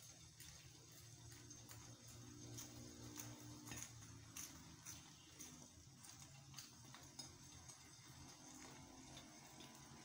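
Egg frying in a flat stone pan on a gas cooker: faint, scattered crackles and pops about every half second over a low steady hum.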